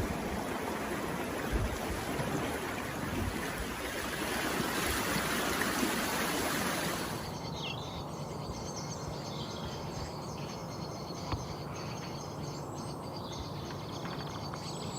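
Steady rush of heavy rain and running floodwater, which cuts off about seven seconds in to quieter outdoor noise with faint bird chirps.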